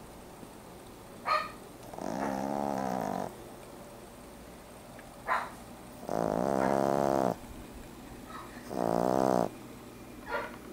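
French Bulldog puppy snoring in its sleep: three long snores of about a second each, each with a short sharp snort shortly before it.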